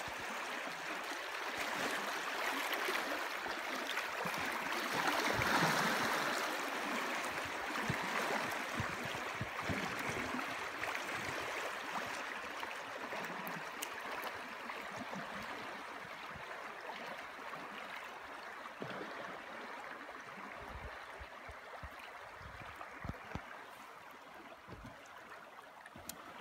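River water rushing over a shallow rocky riffle, heard from a boat drifting through it. It swells a few seconds in and slowly fades toward the end.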